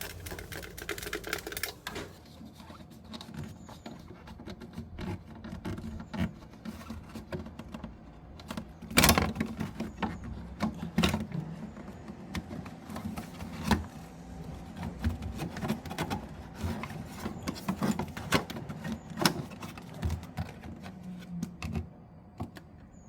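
Irregular clicks and knocks from hand work on refrigerator parts, with the loudest knock about nine seconds in, over a low steady hum.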